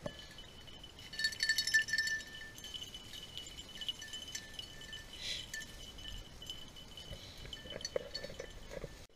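Small bells on the beagles' collars jingling and ringing as the dogs work through the grass, with a busier burst of jingling about a second in.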